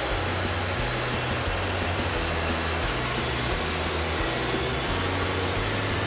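Wood-Mizer LT40 portable band sawmill running under load, its band blade cutting through a walnut log. A steady engine hum sits under an even, unbroken sawing noise.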